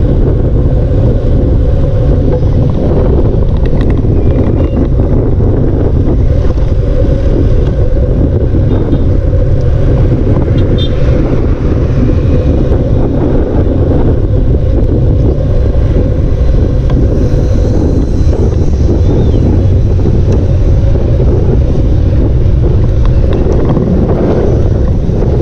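Wind buffeting the microphone of a camera carried on a moving bicycle: a loud, steady, low rumble.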